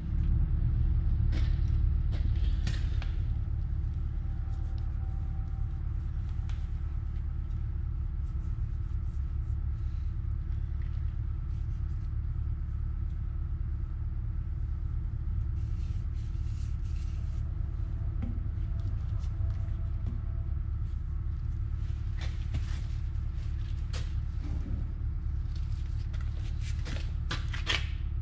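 Steady low mechanical hum of a running machine, louder for the first few seconds, with light clicks and taps scattered through it.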